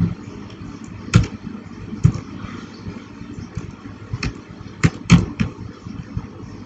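Computer keyboard keystrokes: a few scattered single key clicks, then a quicker run of several clicks about two-thirds of the way through, over a steady low background rumble.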